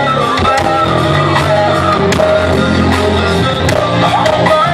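Live blues-rock band playing through a PA: electric guitar, keyboards and drums, with steady drum hits under sustained guitar and keyboard notes.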